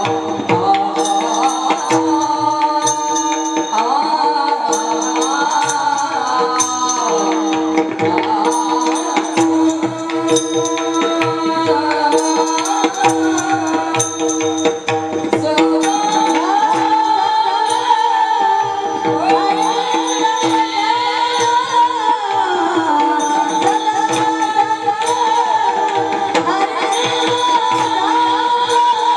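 Marathi kirtan music: a devotional melody sung and played over a steady held drone, with hand drum and small jingling percussion keeping a continuous beat.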